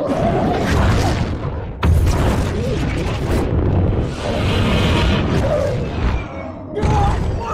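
Monster-movie battle soundtrack: heavy booms and explosions over dramatic film score, with a sudden loud blast about two seconds in.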